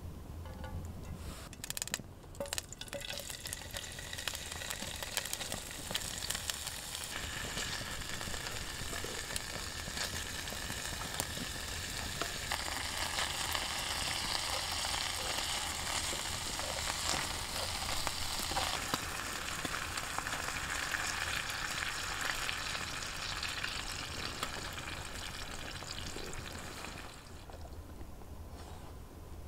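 Diced meat and mushrooms sizzling in a pan over campfire embers while being stirred. The sizzle sets in about two seconds in, grows and eases off near the end.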